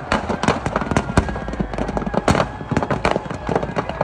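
Firecrackers in a burning Dussehra Ravana effigy going off in a rapid, irregular string of sharp cracks and bangs.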